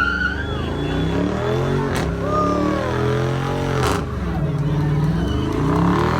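A car engine revving hard, its pitch rising and falling several times, with sharp cracks about two seconds in and again near four seconds in.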